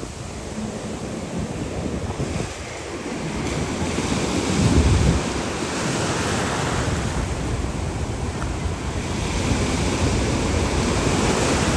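Ocean surf washing around, with wind buffeting the microphone in low gusts, the strongest about five seconds in.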